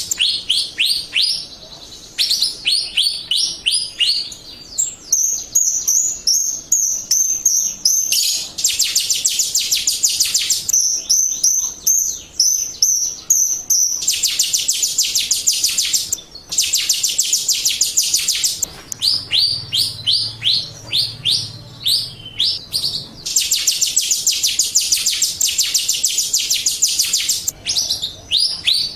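Jalak Rio starling song played as a lure recording: long runs of very rapid, high chirps alternating with series of short, separate downslurred notes.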